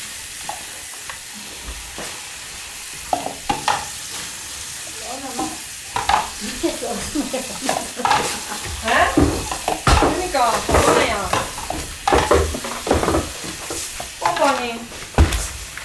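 Hands working napa cabbage leaves for kimchi: a wet rustling and squelching of leaves being rubbed, with frequent short squeaks and small knocks that grow busier about six seconds in.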